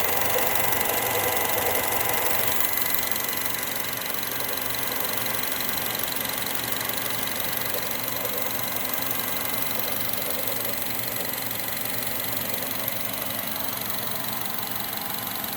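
2010 Honda Fit engine running with a fast, even ticking knock, a strange noise whose source the owner cannot place. A steady high tone with it fades out about two and a half seconds in, and the sound grows a little quieter.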